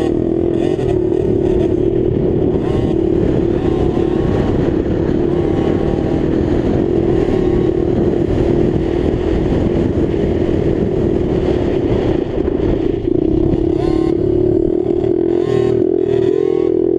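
Motocross dirt bike engine running hard at high revs, its pitch held fairly steady with small rises and dips as the throttle works, heard close from the rider's helmet with rough wind and ride noise mixed in.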